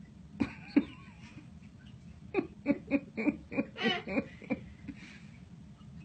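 A person laughing: two short vocal sounds near the start, then a run of about eight quick, evenly spaced laughs, roughly three a second, in the middle of the stretch.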